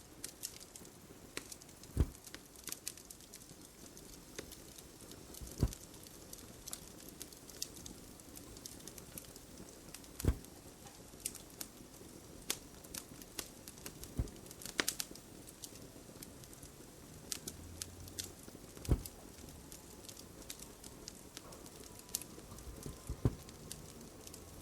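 Fireplace crackling, with many small quick pops and a heavier pop every four or five seconds.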